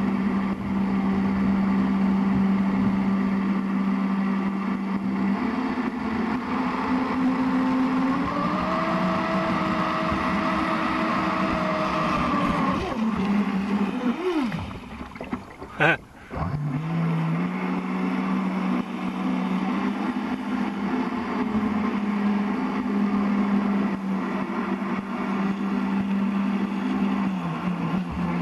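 Electric motor of a radio-controlled boat, running on a 4S battery, giving a steady whine that climbs in pitch about five to eight seconds in as the throttle opens, then drops away around thirteen seconds in. After a brief swoop down and back up there is one sharp click near the middle, and the motor settles back to a steady whine.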